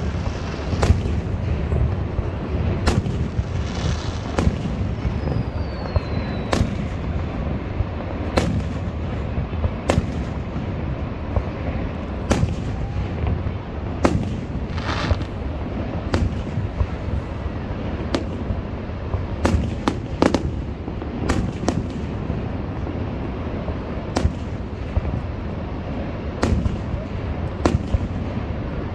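Aerial fireworks shells bursting, a sharp bang every second or two, with a couple of brief hisses, over a steady low rumble.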